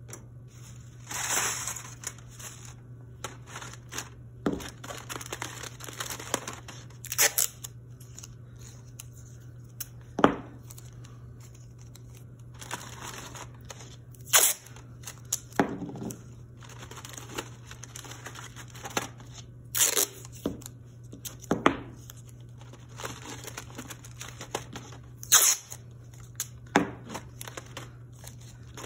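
Masking tape ripped off the roll one piece at a time and pressed and wrapped over crumpled aluminium foil, with the foil crinkling under the hands. Sharp rips come every few seconds over a steady low hum.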